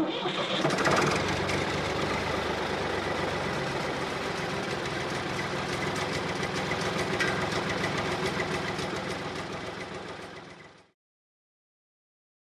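An engine idling steadily with a knocking pulse, fading out over about a second near the end and then stopping into silence.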